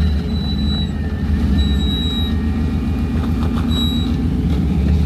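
Jeep Wrangler YJ's engine running steadily at low revs as it crawls over a gravel mound. A thin high squeak comes and goes about three times.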